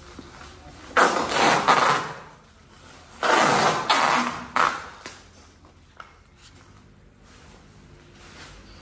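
Packing tape pulled off the roll in two long noisy strips, one about a second in and one about three seconds in, each lasting a second or more.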